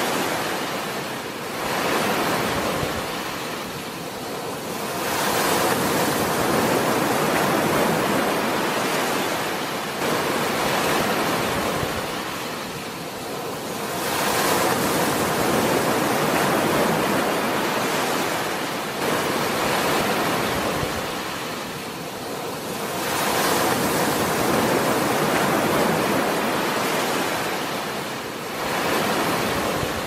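Small sea waves breaking and washing up onto a sandy beach, the surf swelling and easing about every nine seconds.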